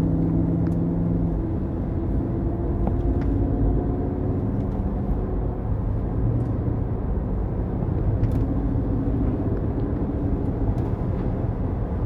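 GMC Denali drivetrain heard from inside the cab while driving: a steady road rumble with a low humming drone that swells and fades at times. The humming persists after the differential was replaced, and the driver suspects the transmission or transfer case.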